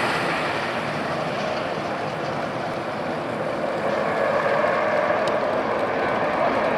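Boeing 737-400's twin CFM56-3 turbofan engines at takeoff thrust: a steady jet roar that grows slightly louder about four seconds in as the airliner lifts off.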